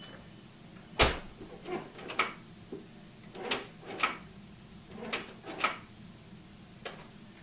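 A car door on a 2002 Volkswagen Jetta shuts with a single heavy thump about a second in. Several lighter knocks and clicks follow over the next few seconds.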